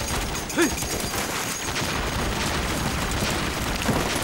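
Heavy, continuous battlefield gunfire: many rifle and machine-gun shots overlapping with no break.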